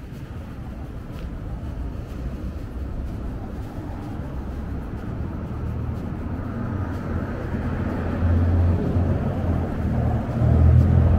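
Road traffic: a steady rumble of cars on a city street that grows louder toward the end.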